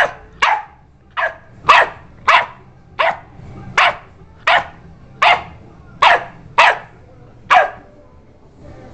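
Pit bull puppy barking repeatedly, about a dozen short barks a little under a second apart, stopping near the end.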